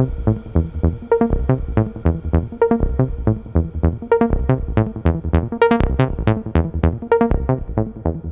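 Electronic background music: synthesizer tones over a steady, fast beat.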